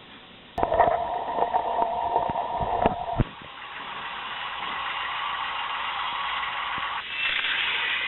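Vintage K'Nex Screamin' Serpent toy roller coaster running: a clicking, rattling mechanical sound starts suddenly about half a second in and stops abruptly about three seconds in, followed by a steadier whirring that grows and shifts higher near the end.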